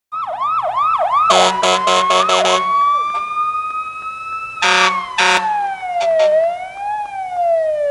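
Siren sound with a fast yelp of about four sweeps a second. It is broken by a quick run of short blasts, then slides into slow rising and falling wails with two more blasts midway.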